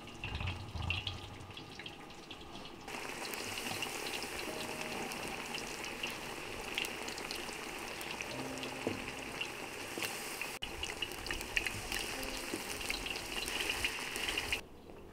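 Pakora frying in hot oil in a pot, a steady sizzle that starts about three seconds in and cuts off shortly before the end. Before it, soft squelching of a hand working thick pakora batter.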